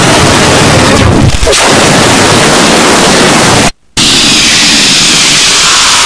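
Very loud, harsh wall of noise from a picture turned into sound with Photosounder. About four seconds in it cuts out for a moment, then returns with a different, brighter texture.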